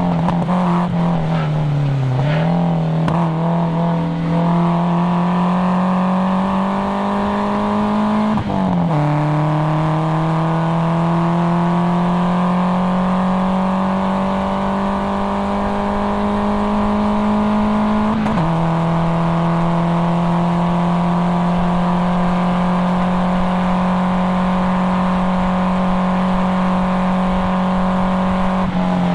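1997 Nissan 240SX S14's KA24DE four-cylinder engine, through a cat-back exhaust with a resonator, pulling hard at high revs on track. The revs dip briefly about 2 seconds in, then climb slowly in each gear. Two quick upshifts drop the pitch, about 8 seconds in and again about 18 seconds in, and the engine then holds near the top of its range.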